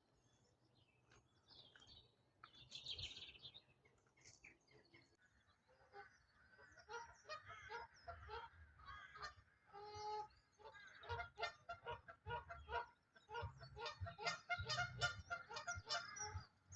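A flock of Canada geese honking. The calls start sparse about six seconds in and thicken into a dense, overlapping chorus of honks.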